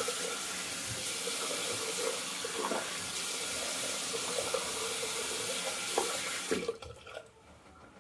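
Bathroom sink faucet running steadily into the basin, with a couple of light knocks, then shut off about six and a half seconds in.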